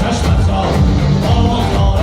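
Live band playing loud music, with a driving drum beat under amplified instruments.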